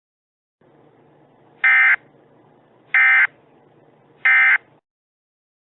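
Emergency Alert System end-of-message data bursts: three short, loud digital SAME tone bursts about 1.3 seconds apart over a faint hiss, signalling the end of the alert.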